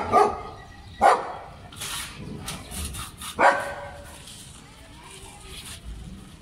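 German shepherd barking in play: four sharp barks, two in quick succession at the start, one about a second in and one past the halfway mark, with brief scratchy noises in between, then quieter.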